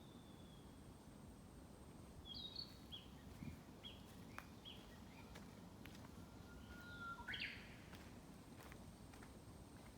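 Small songbirds singing faintly in woodland: a string of short, high chirped notes, then a long whistled note that breaks into a quick upward sweep about three quarters of the way through.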